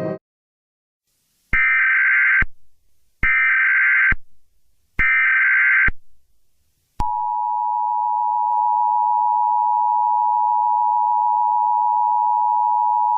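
Emergency Alert System tones: three one-second bursts of buzzy SAME header data noise, evenly spaced. About halfway through, the steady two-tone EAS attention signal starts and holds.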